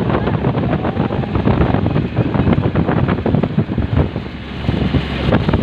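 Wind buffeting the microphone on a moving vehicle, a loud, irregular rush over the vehicle's running noise, easing briefly about four seconds in.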